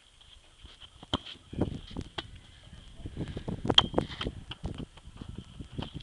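Wind rumbling and buffeting on a handheld camera's microphone, with a few sharp knocks, the loudest about four seconds in, over a faint steady high whine.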